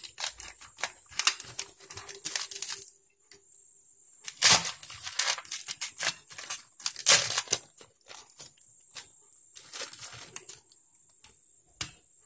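Packing tape and parcel wrapping being torn and crumpled by hand, a run of irregular rasps and crackles with two louder tears about four and a half and seven seconds in.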